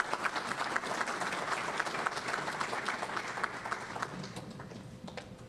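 Audience applauding, a dense patter of many hands clapping that dies away about four seconds in to a few scattered claps.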